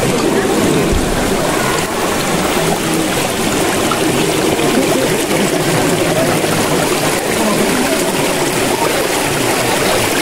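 Flowing water rushing steadily, as at a stream or waterfall.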